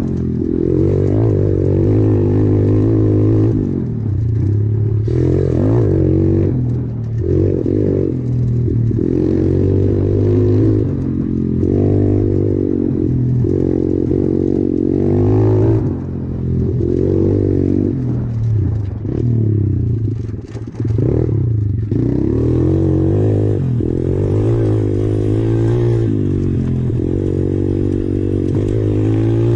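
SSR 125 pit bike's single-cylinder four-stroke engine running under way, its revs climbing and falling over and over as the throttle is opened and rolled off, with a brief drop in revs about twenty seconds in.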